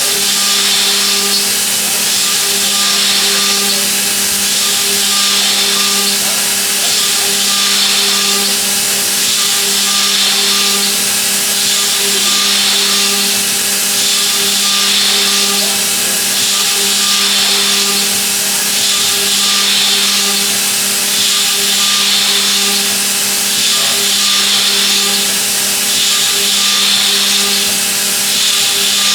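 Milling machine cutting with a high-feed milling cutter: a steady spindle hum under a loud hiss of cutting that swells and fades about every two and a half seconds.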